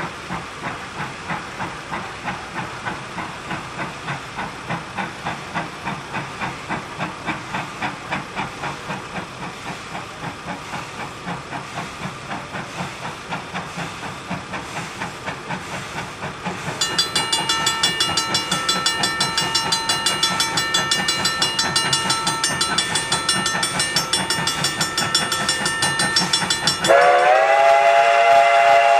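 Huckleberry Railroad steam locomotive No. 152 chuffing steadily, about two exhaust beats a second. About halfway through, a steady high ringing tone joins the chuffing. Near the end the locomotive's chime steam whistle blows, loud and held.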